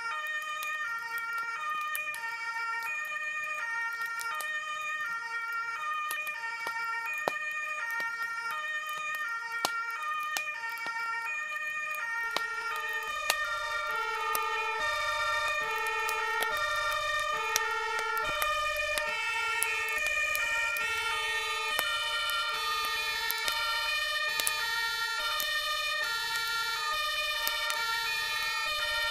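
Several German two-tone fire-engine sirens (Martinshorn) sounding at once, each stepping back and forth between a high and a low note. About 13 seconds in, a louder, lower-pitched siren joins together with a low engine rumble, and scattered sharp clicks run through it.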